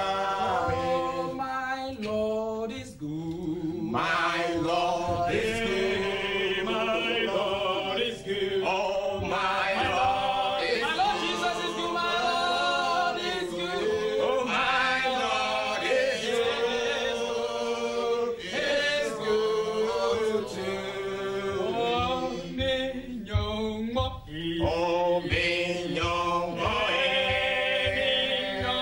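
Male vocal group singing a cappella in harmony, with short breaks between phrases.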